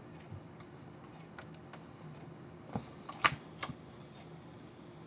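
A few faint, scattered clicks from operating a computer, the loudest a little over three seconds in, over a low steady hum.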